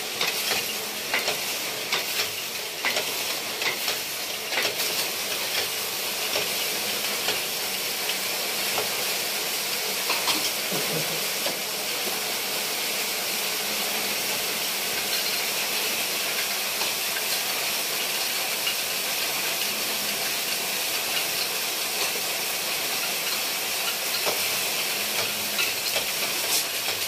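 Circular sock-knitting machines running: a steady, dense hiss-like clatter of the needles, with scattered small clicks in the first few seconds.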